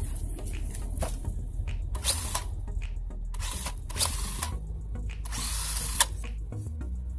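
RC monster truck's 1900 kV brushless electric motor whirring in about four short throttle bursts, the longest near the end, which stops with a sharp click.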